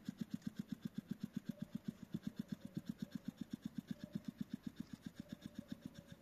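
A hedgehog rolled up in a ball huffing loudly in a fast, even rhythm of about eight puffs a second, going like a pump, and growing slightly fainter near the end. This is the defensive huffing of a disturbed hedgehog.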